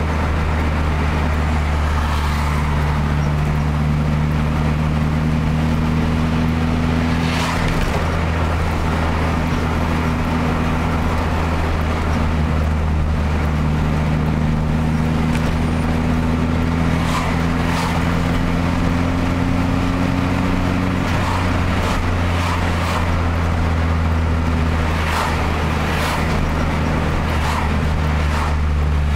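Car engine and road noise heard from inside the moving car's cabin: a steady low drone whose pitch rises slowly and then drops about two-thirds of the way through. A few brief clicks and knocks sound over it.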